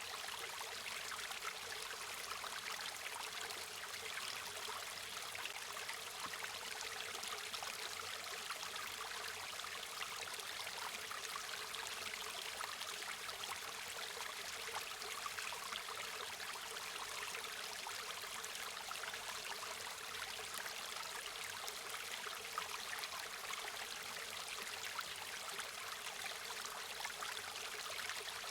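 River or stream water flowing and babbling steadily, an even rushing hiss with a fine trickling texture throughout.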